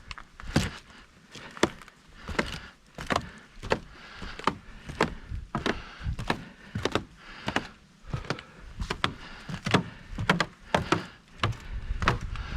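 Footsteps of a person walking at a steady pace, a sharp step about every half second.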